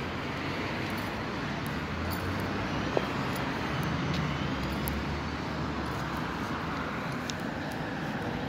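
A bus's diesel engine running steadily under road and traffic noise. A single sharp click about three seconds in.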